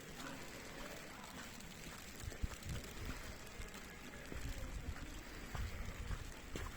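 Footsteps in fresh snow under a steady hiss of snow falling on an umbrella. Low rumbles of wind on the microphone come in from about two seconds in.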